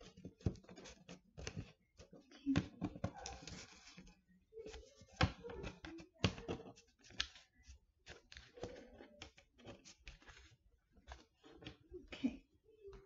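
Hands working on a paper weaving with a plastic glue bottle on a table: irregular small clicks, taps and paper rustles as the bottle is squeezed, moved and set down and the paper is handled.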